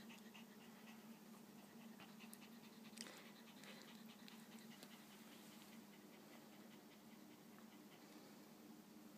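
Faint, quick and even clicking of newborn Maltese puppies suckling at their mother's teats, with one slightly louder click about three seconds in.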